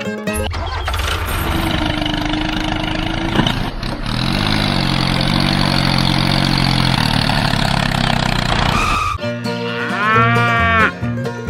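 A small engine runs steadily with a low, even pulse for about nine seconds. Then plucked banjo-style music comes back, and a cow moos once near the end.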